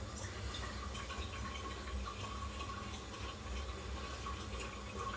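Faint running water over a steady low rumble.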